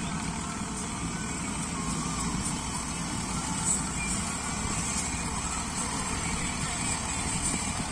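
SAME Greaves 503 tractor's diesel engine running steadily under load, driving a rotary sugarcane trash cutter that shreds dry cane leaves on the ground; a dense, even mechanical noise.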